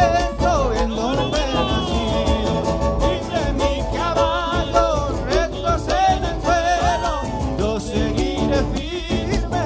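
Chaqueño folk band playing with guitar, violin and bombo drum over a steady beat, a wavering lead melody on top.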